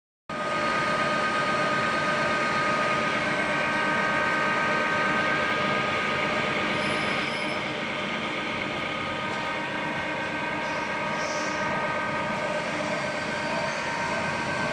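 Metal lathe running steadily: a mechanical whine of several steady tones over a constant machine hum, cutting in suddenly at the start and easing slightly about halfway through.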